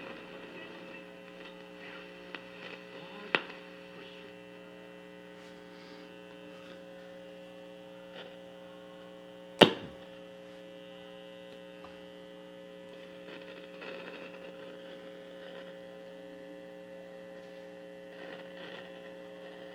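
Westinghouse H-126 'Little Jewel' tube AM radio with no programme coming through, its speaker giving a steady mains hum. A small click a few seconds in and one sharp, louder click about halfway through.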